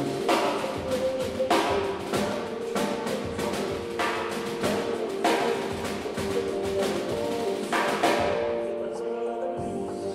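Snare drum played with sticks in quick, busy patterns with strong accents, over backing music with held chords.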